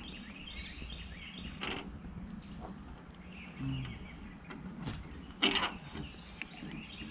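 Birds chirping in the background, with a few short clicks and rustles as lead air-rifle slugs and a cloth towel are handled. The loudest click comes a little past halfway.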